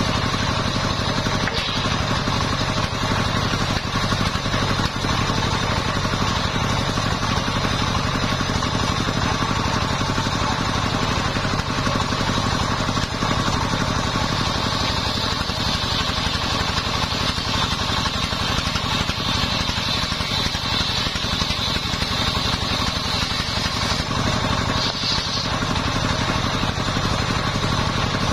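Homemade circular saw bench, its blade belt-driven by a stationary engine, ripping a sengon log lengthwise: the engine runs steadily under the continuous high whine and rasp of the blade cutting through the wood.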